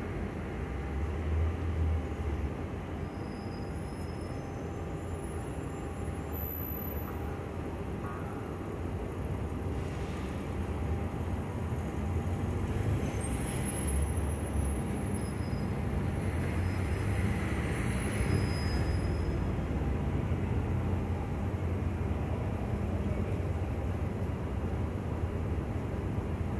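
Steady low rumble of city street traffic, with one sudden loud burst lasting about a second, roughly six seconds in.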